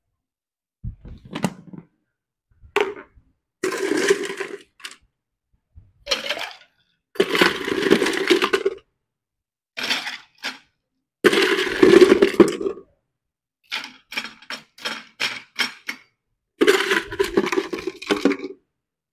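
Ice cubes being scooped with a metal ice scoop and tipped into a glass: repeated bursts of clattering ice, with a quick run of clinks about two-thirds of the way through.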